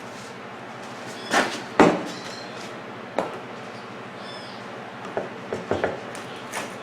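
Sharp knocks and light clicks of a replacement microwave high-voltage capacitor and its mounting being handled and set into place inside the opened microwave. There are two louder knocks about one and a half and two seconds in, another near the middle, and a quick run of lighter clicks near the end.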